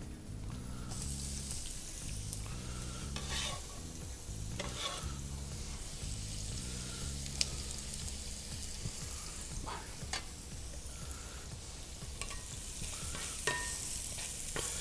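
Chopped onion sizzling in hot olive oil in a frying pan as it is scraped in off a metal bench scraper, with several scraping strokes and a few sharp clicks of metal on the pan, then stirred with a spatula near the end.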